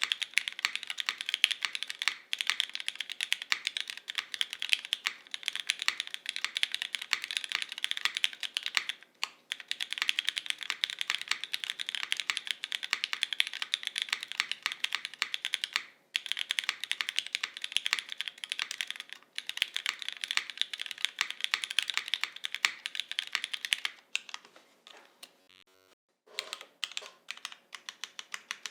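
Fast touch-typing on a Jane v2 ME custom mechanical keyboard: top-mount, polycarbonate plate, lubed and filmed Cherry MX Black linear switches and GMK KA1953 keycaps. The keystrokes click in a dense stream, with short pauses twice. Near the end the typing stops for a couple of seconds, then single keys are pressed more slowly.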